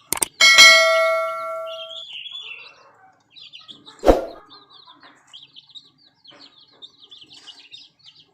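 A bright bell-like ding rings out and fades over about a second and a half, followed by a single thud about four seconds in. Chicks cheep softly through the rest.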